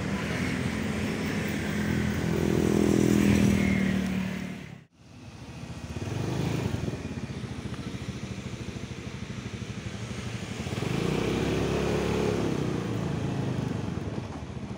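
Motorcycle engine running, its revs rising and falling a few times. The sound cuts out suddenly for a moment about five seconds in.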